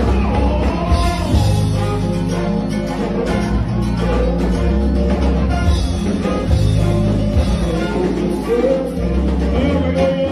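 Live band music played loud through a club sound system: a heavy bass line and drum kit beat, with a singer's voice gliding over it.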